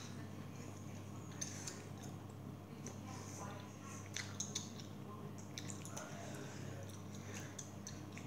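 Quiet room tone: a steady low hum with faint, scattered small clicks and taps.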